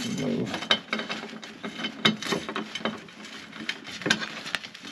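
Ratchet wrench clicking in short runs, with scattered metallic clicks and clinks of sockets and fasteners, as the main fuse in a Tesla is unbolted.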